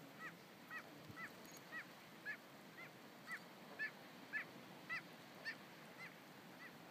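A bird calling in a steady series of short, hooked notes, about two a second, over a faint steady hiss; the calls fade out near the end.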